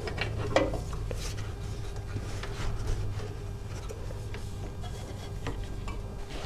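Light scattered clicks and rubbing of metal parts being handled while a motorcycle's rear brake master cylinder is fitted, over a steady low hum.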